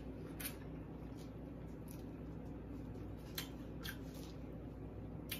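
Quiet eating with a fork from a plate of baked ziti: chewing, with about five faint sharp clicks at irregular times, over a low steady hum.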